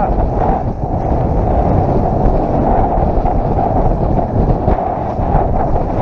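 Steady wind buffeting the microphone of a camera on a mountain bike riding fast down a dirt singletrack, mixed with the rumble of the tyres and frequent small rattles and knocks from the bike over the trail.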